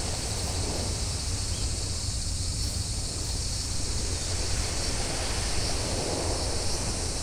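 Wind buffeting the microphone outdoors: a steady low rumble under an even hiss, with no distinct events.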